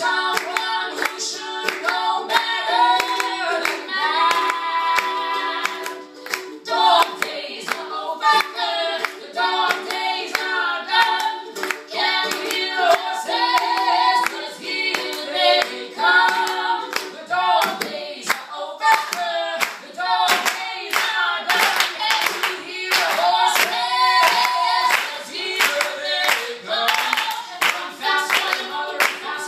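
Live pop song performed in a small room: a woman and a man singing together over a strummed acoustic string instrument, with steady rhythmic handclaps throughout.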